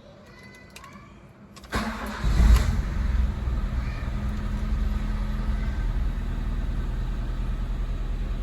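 Honda Civic engine cranked and starting about two seconds in, flaring briefly, then settling to a steady idle with no belt squeal.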